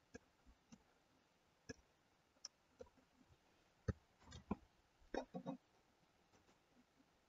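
Computer mouse clicking: faint single clicks spread out, then a quicker run of clicks and taps between about four and five and a half seconds in.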